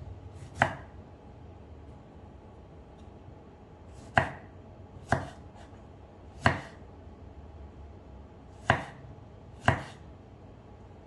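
Kitchen knife slicing tomatoes and knocking on a wooden cutting board: six sharp, separate chops at uneven intervals.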